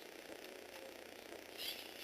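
Lego Technic plastic gear mechanism working, a faint steady whir with a short burst of plastic clicking near the end.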